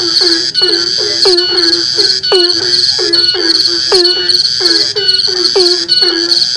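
An animal calling over and over, about two to three short calls a second, each sliding quickly down in pitch, over a steady high-pitched pulsing trill.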